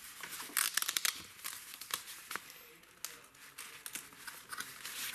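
Small clear plastic parts bag crinkling as it is handled, in irregular short bursts, loudest about a second in.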